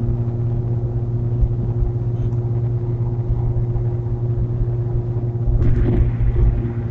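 Steady engine and road drone inside the cabin of a 2016 Nissan Versa cruising at highway speed, with a low hum. About five and a half seconds in, a louder rush of tyre noise with a few knocks as the car jolts over rough pavement.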